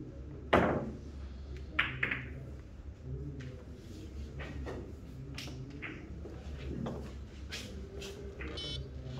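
Billiard cue striking the cue ball about half a second in, the loudest sound, followed by sharp clicks of the balls hitting each other and the cushions, scattered over the following seconds.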